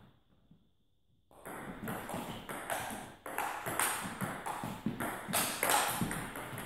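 Table tennis rally: a celluloid ball clicking off bats and the table in quick succession, starting about a second and a half in and running until just before the end.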